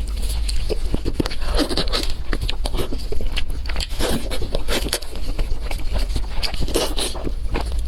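Close-miked eating: a person biting and chewing food, with many irregular crunches and mouth clicks over a steady low hum.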